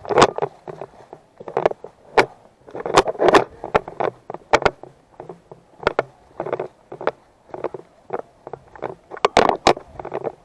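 A loose GoPro rattling and knocking in its insecurely fastened base plate, shaken by the wearer's movement: irregular sharp clicks and knocks, often several in quick succession.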